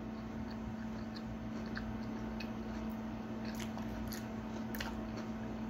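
Faint chewing and wet mouth clicks, growing more frequent about halfway in, over a steady low electrical hum.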